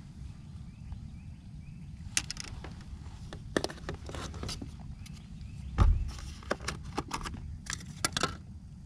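Small plastic clicks, rattles and knocks of a bait container being handled and opened in a kayak, with one heavier knock about two thirds of the way through. A steady low rumble runs underneath.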